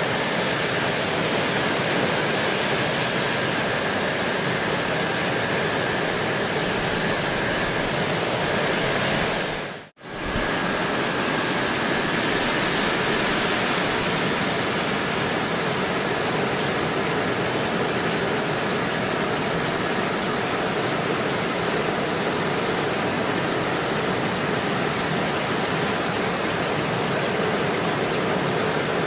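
Steady rain falling, an even hiss. About ten seconds in the sound dips to near silence for an instant and then returns.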